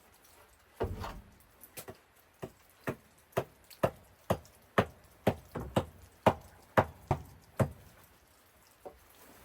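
A steady series of sharp knocks, about two a second, starting about a second in and stopping after some seven seconds.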